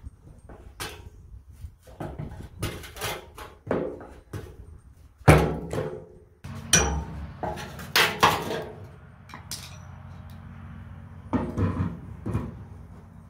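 Screwdriver and hand tools clinking, tapping and scraping on a rusty steel fuel tank: a scattered series of metallic knocks, the loudest about five seconds in. About six and a half seconds in, a steady low hum starts underneath.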